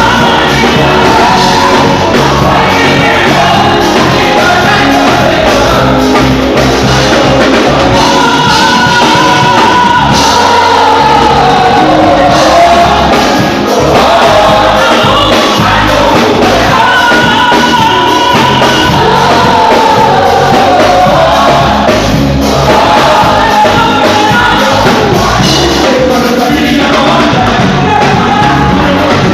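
Live gospel worship music: voices singing held, sliding lines over a full band, loud and continuous.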